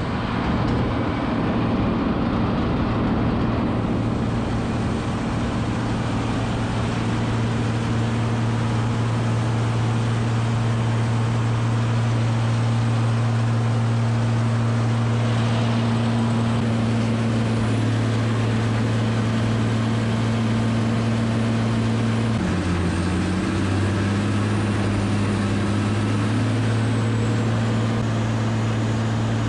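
Rotochopper MC 166 hay grinder running steadily under load, its diesel engine humming low beneath the rushing noise of hay being ground. About two-thirds of the way in the engine pitch sags for about a second, then recovers.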